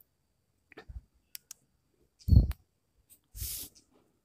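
Plastic drawing scale being shifted across drawing paper and set down: a few light clicks, a louder knock about halfway through, then a brief scratchy rustle on the paper near the end.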